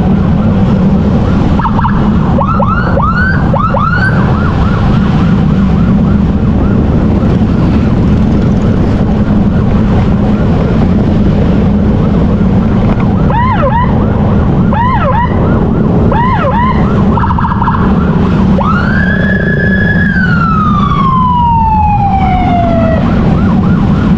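Emergency siren sounding in short quick whoops in two bursts, then one long wail that rises, holds and slides slowly down in pitch. Under it runs the steady noise of a motorcycle engine and wind while riding.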